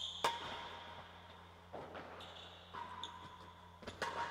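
Real tennis rally: sharp, echoing knocks of the hard ball off rackets, walls and floor, about four of them, with short high ringing tones between them.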